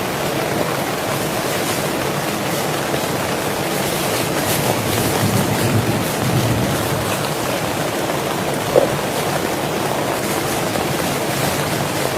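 Heavy rain falling steadily, an even hiss of drops, with a single brief tap about nine seconds in.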